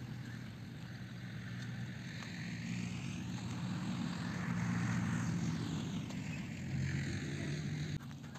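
Motorcycle engine running as the bike is ridden across rough ground, with a steady hum that grows louder toward the middle and then eases. The sound drops away abruptly near the end.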